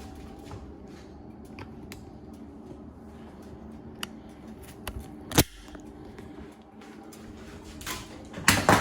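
Scattered light clicks and knocks over a steady low hum, with one sharp click about five and a half seconds in and a cluster of louder knocks near the end.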